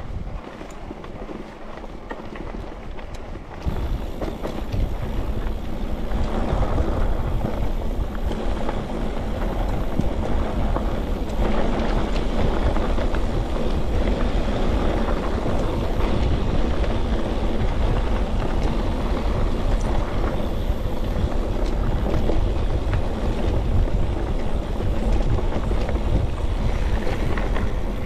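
Wind buffeting the microphone of a bike-mounted camera over the rumble of mountain-bike tyres on a rough track. It gets louder about four seconds in and then stays steady.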